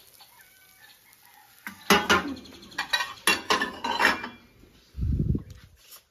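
A quick burst of chicken clucking mixed with clattering, from about two seconds in to about four seconds in, followed near the end by a short low rumble.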